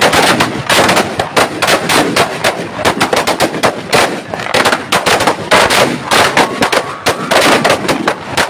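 Firecrackers packed inside burning Dussehra effigies going off in a rapid, continuous barrage of loud cracks and bangs.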